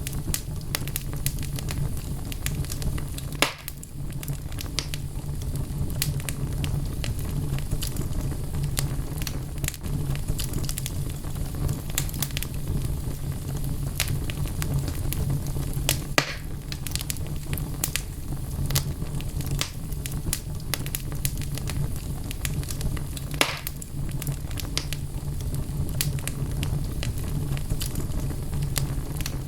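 Wood fire burning in a fireplace: a steady low rumble of flames under constant small crackles of the logs, with a few louder pops spread through.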